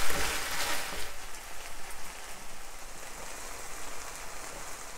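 Sliced okra sizzling in hot ghee in a cast-iron skillet, with a wooden spoon stirring it through the first second; after that a steady, quieter sizzle.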